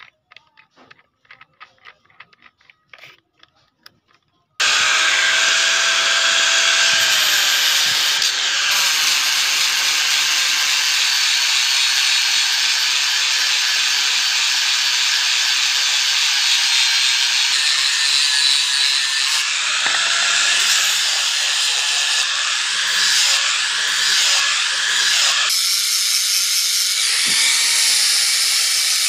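Electric angle grinder switched on about four and a half seconds in and running with a steady high whine, its pitch dipping and recovering as the abrasive disc is pressed into a piece of wood. Before it starts, a few faint clicks.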